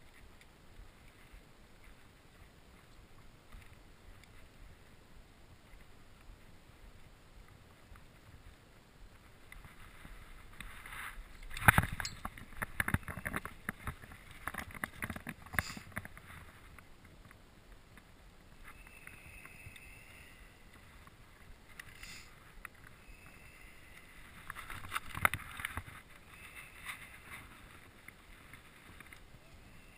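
Handling noises from unhooking a channel catfish with pliers on gravel: a sharp click about a third of the way in starts a run of knocks, clicks and scraping, with more bursts later on. The first third holds only faint steady background hiss.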